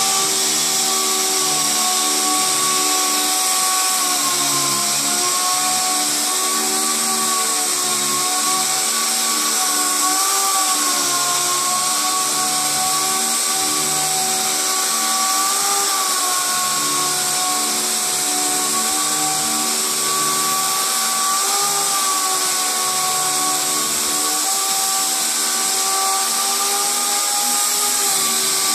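Air-hose-fed random orbital sander running steadily with a 3000-grit foam disc, wet sanding the painted clear coat of a car hood. It gives a steady whine over a high hiss, and the whine dips slightly in pitch now and then as the pad is pressed against the panel.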